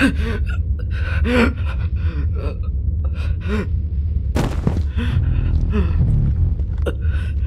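A person gasping and groaning in pain: a run of short, strained breaths and cries, with one sharp harsh gasp about halfway through, over a steady low rumble.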